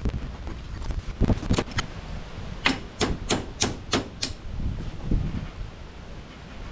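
A run of six sharp, evenly spaced clicks, about three a second, in the middle, after a few softer knocks.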